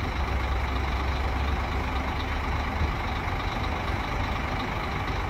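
Scania K400 coach's rear-mounted diesel engine running. A steady low rumble eases about three seconds in.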